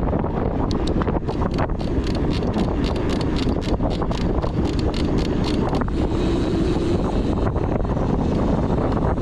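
Wind buffeting the microphone of a bike-mounted or helmet camera on a fast downhill mountain-bike run, a steady low rumble. Over it run many sharp, irregular clicks and rattles from the bike over rough ground, thinning out after about six seconds.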